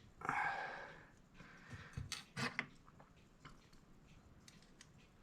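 A breathy exhale, like a sigh, then scattered small clicks and taps from hands working on a mechanical clock movement.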